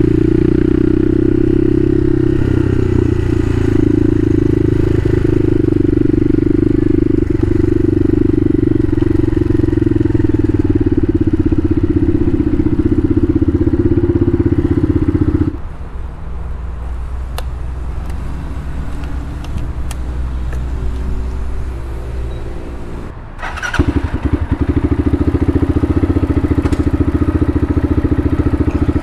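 Bashan Motomax 250 supermoto's engine running hard at steady throttle. About halfway through it drops suddenly to a quieter, lower run, as when the throttle is closed. Near the end it comes back on abruptly and runs hard again.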